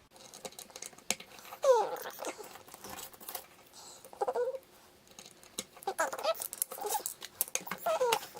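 Small metal clicks and scrapes of tools working on a padlock's C-clip and core, with a few short, high squeaks in between.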